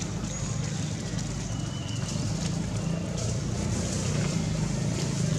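Outdoor background: a steady low hum, with a few short high bird chirps about two and three seconds in.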